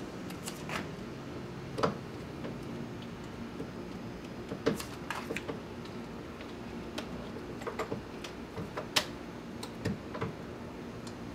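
Irregular light clicks and ticks of a Phillips screwdriver working at the screws of a truck's door panel, about a dozen in all, the sharpest one about nine seconds in, over a faint steady hum.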